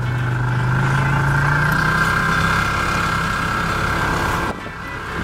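Snowmobile engine running close behind, its note rising in pitch over the first couple of seconds and then holding steady, before dropping away suddenly near the end.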